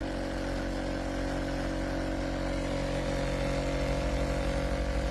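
Espresso machine running with a steady, even mechanical hum that cuts in suddenly.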